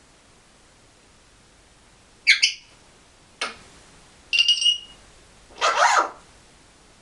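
African grey parrot calling in four short, loud bursts about two seconds in: a shrill chirp, a brief click-like note, a short whistled note, then a harsher, longer squawk.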